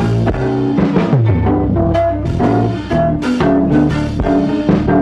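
Instrumental jazz-flavoured track with a drum kit and a low bass line under pitched melodic notes.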